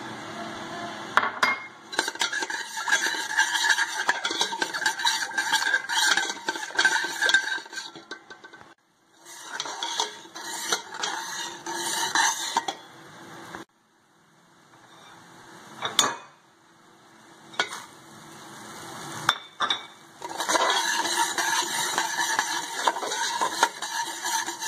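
A perforated steel skimmer stirs semolina roasting in hot fat in a steel pot, with quick clinks and metal scraping against the pan. The stirring comes in several stretches that stop abruptly.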